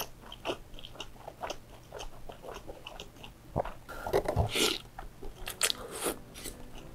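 Close-miked mouth sounds of a person eating chili-oil bakmie noodles: many short wet chewing clicks and smacks, with a louder, longer noisy stretch about four to five seconds in as a forkful of noodles is drawn into the mouth.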